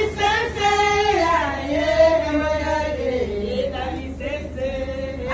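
A group of people singing a song together, long held melodic lines carried by several voices, women's voices among them.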